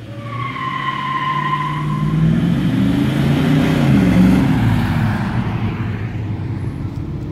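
A Chevrolet Camaro muscle car accelerating hard and passing close by, its engine rising in pitch and loudness to a peak about four seconds in, then fading as it moves away. A high tire squeal sounds through the first two seconds.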